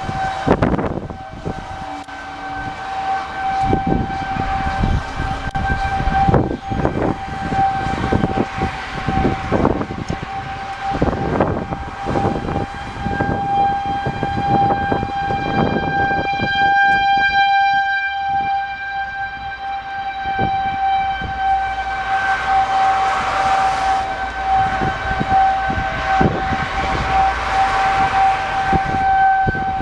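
Outdoor tornado warning siren sounding a steady, unchanging tone that swells and fades in loudness as it rotates. Irregular rumbling strokes run underneath, and a stack of higher tones joins in for a few seconds midway.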